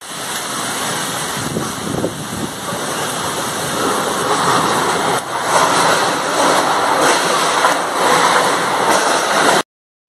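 Heavy rain pouring down in strong wind: a dense, steady hiss that grows louder about four seconds in and stops abruptly near the end.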